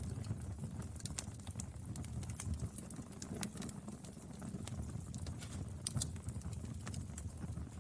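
Wood fire burning, with irregular sharp crackles and pops from the burning wood over a low, steady rumble of the flames.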